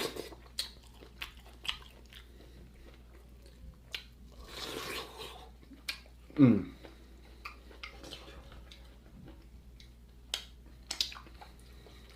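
Close-up eating of king crab legs: scattered cracks and crunches of shell with chewing. A short sound falling in pitch about six seconds in is the loudest moment.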